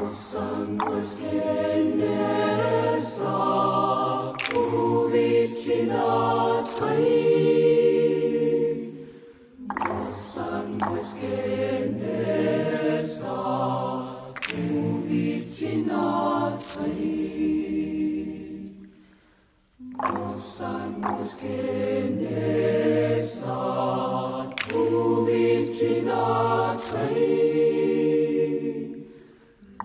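A mixed choir of men's, women's and children's voices singing in harmony, in three phrases of about ten seconds each with a short break between them.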